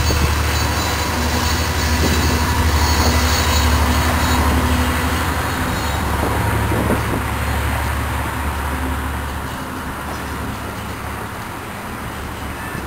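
Diesel-hauled commuter train passing: the locomotive's low engine drone, fading about nine and a half seconds in, with the bilevel coaches' wheels rolling on the rails.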